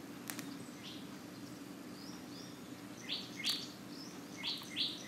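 Faint bird chirps: short, high, falling calls, a few early and more in the second half, over a low steady hum, with a single sharp click about a third of a second in.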